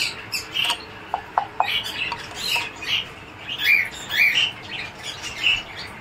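Small parrots in an aviary squawking, short harsh calls about two a second, with a few brief clear chirps about a second in.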